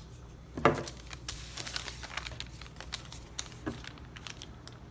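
Paper rustling and crinkling with many small clicks and taps as a cardstock piece is handled and pressed onto a brown paper lunch bag. About half a second in there is one short, louder sound from a voice.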